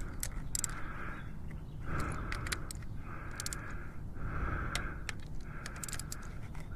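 Ratcheting torque wrench being worked in repeated strokes to tighten a bolt, giving short runs of metallic clicks about every second or so.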